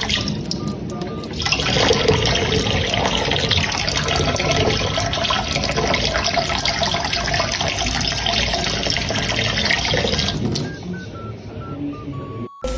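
Rushing water that starts about a second and a half in, runs steadily and stops near the end, followed by a few faint short beeps.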